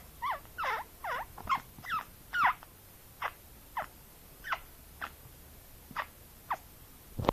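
Budgerigar chattering: a quick run of warbling chirps in the first couple of seconds, then single short chirps every half second or so.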